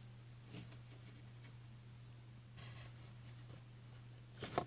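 Faint scraping and rustling of a dime and cardboard in a homemade cardboard coin mechanism, with a sharp click near the end.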